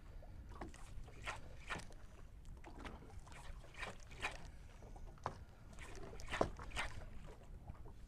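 Small waves slapping and splashing against a boat's hull, a string of short irregular slaps over a low wind rumble.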